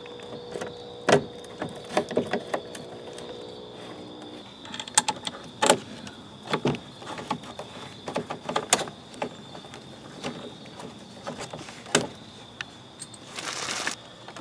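Irregular clicks and taps of a screwdriver and screws being worked into the mounting points of a car's dash cluster, with plastic dash parts knocking as they are handled, and a brief scraping rustle near the end.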